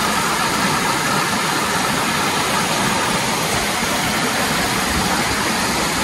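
Steady rush of flowing water, an even hiss with no change in level.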